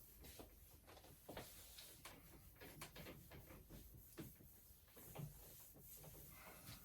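Faint, irregular taps and scrapes of writing on a board, close to near silence.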